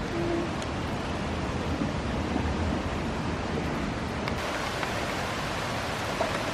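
Steady outdoor rushing noise with no distinct events, such as wind over the microphone or distant running water.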